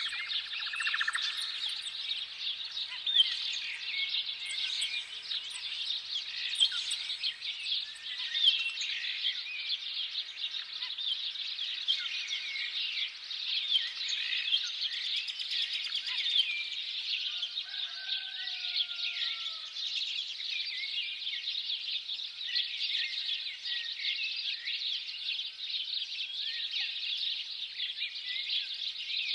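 A flock of small birds chirping all at once in a dense, continuous chorus of quick high tweets. A few lower, longer sliding calls stand out about two-thirds of the way through.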